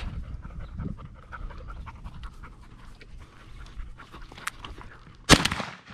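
Bird dog panting, with a steady low rumble underneath and one loud, sharp thump about five seconds in.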